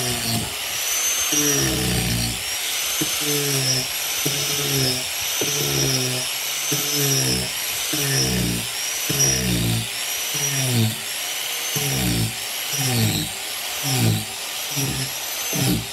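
Angle grinder fitted with a carving disc, cutting into an oak post. Its whine dips in pitch and recovers again and again as each stroke loads the disc against the wood.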